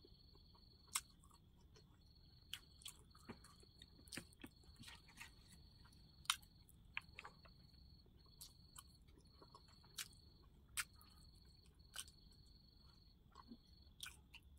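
Close-miked chewing of a mouthful of rice and vegetables: sharp wet mouth clicks and smacks scattered irregularly, several a second at times. Behind them is a faint, steady high tone that breaks off and comes back.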